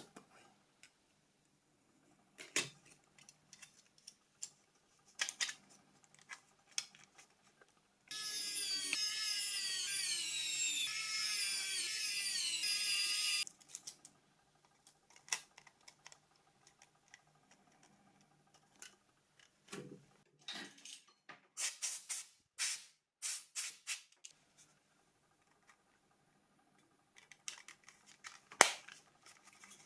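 Small clicks, taps and snaps of plastic phone parts being handled and pressed together while a Nokia 2600 is reassembled, with a loud, shrill, squeaky sound of falling pitches lasting about five seconds in the middle and a quick run of sharper snaps later on.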